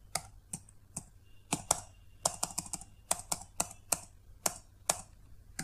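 Computer keyboard being typed on: about fifteen separate key clicks at an uneven pace, with a quick run of taps a little past two seconds in.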